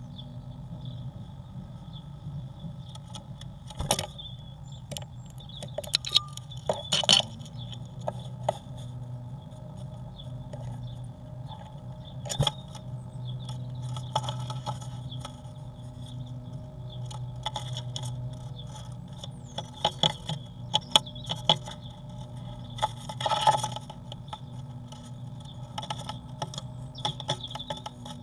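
Great tit's claws and beak scratching and tapping on the bare wooden floor of a nest box: scattered sharp clicks and short scrapes, bunched into several flurries, over a steady low electrical hum.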